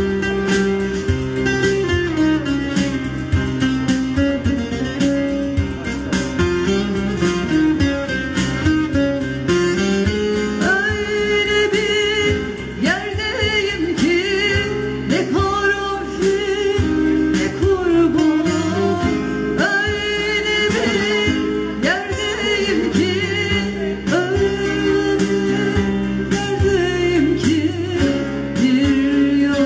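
Music: the instrumental opening of a Turkish song, with plucked strings under sustained notes and a sliding melodic line in the middle.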